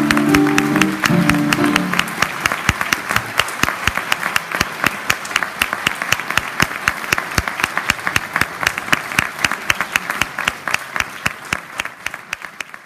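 The last notes of a song for voice and piano die away in the first two seconds, then an audience applauds steadily, the clapping thinning out near the end.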